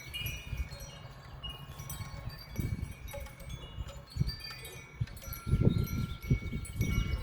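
Wind chimes ringing irregularly, scattered clear tones at several pitches, in gusty wind. Wind rumbles on the microphone in gusts, strongest over the last couple of seconds.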